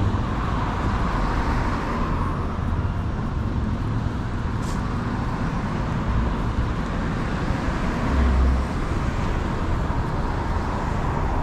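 City street traffic noise: a steady wash of passing cars and engines, with a short louder low rumble about eight seconds in.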